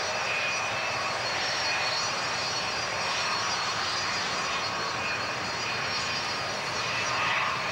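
Saab 2000 twin-turboprop airliner flying low past with gear down, its engines and six-bladed propellers making a steady drone with a faint high whine on top.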